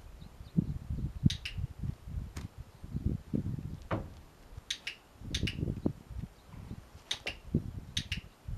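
A horse's hooves stepping up onto and shifting on a step-up horse trailer's floor: irregular dull thuds, with a few sharp double clicks now and then.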